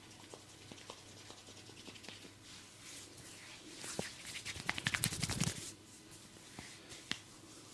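Hands rubbing and scratching through hair and over the scalp during a head massage: faint scratching, then a run of quick crackling clicks between about four and five and a half seconds in.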